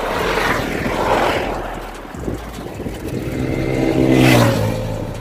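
Highway traffic passing close to a bicycle: a vehicle swishes by about a second in, then an engine hum grows and passes close at about four seconds, the loudest moment, before fading. Wind and road rumble run under it.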